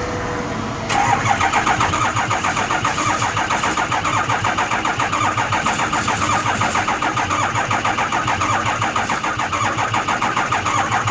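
Starter cranking a Ford 6.0 Power Stroke V8 diesel, beginning about a second in, with an even rhythmic chugging as the engine turns over without firing. No low-side oil pressure builds while it cranks, which the mechanic blames on the gerotor oil pump gear and its worn aluminium housing.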